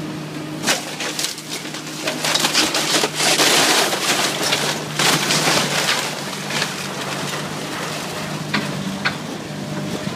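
Komatsu PC350LC hydraulic excavator tearing down a building: wood and debris cracking, splintering and crashing as the bucket pulls the structure apart, over the machine's steady diesel engine. The heaviest crashing comes about two to four seconds in and again around five seconds.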